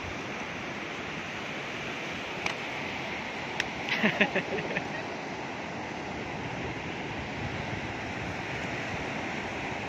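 Ocean surf breaking and washing on a beach, a steady rushing noise. A couple of faint clicks, then a short burst of sharp, louder sounds, come about four seconds in.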